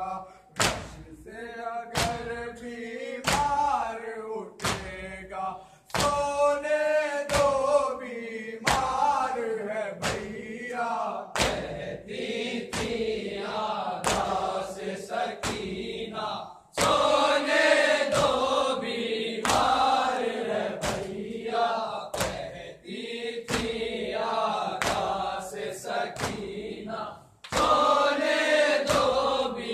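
Men chanting a noha, an Urdu lament, in unison, over a steady beat of open hands striking chests (matam) about twice a second. The chant breaks off briefly twice.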